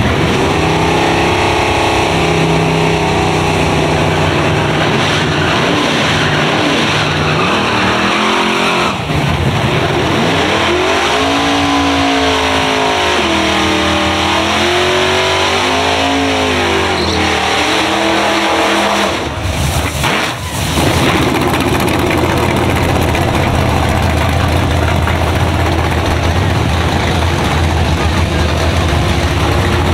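Drag-race car engines at a strip: a steady rumble at first, then engine pitch rising and falling repeatedly as the throttle is blipped, with a short drop near twenty seconds in. After that a single engine idles steadily as a Fox-body Ford Mustang race car rolls at low speed.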